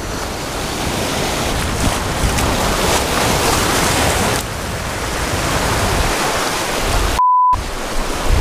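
Ocean surf washing up onto a sandy, lava-rock shoreline, a steady rush of breaking waves with wind on the microphone. A short, steady electronic beep sounds about seven seconds in.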